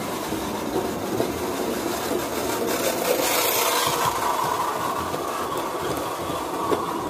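Gauge 1 model train rolling along plastic track laid on wooden decking, a steady rumble and clatter of wheels on rail that grows loudest about three to four seconds in as the coaches pass close by.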